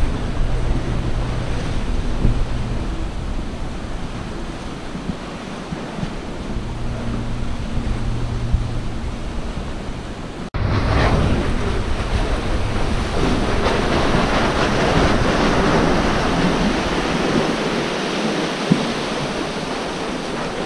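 Sea washing around the pier, with wind buffeting the microphone. About halfway through the rush jumps louder and brighter.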